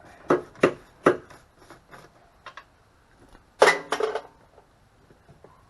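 Sharp metallic clanks of hand tools working on the mower's frame: three quick knocks in the first second, then a louder, briefly ringing metal clatter about three and a half seconds in.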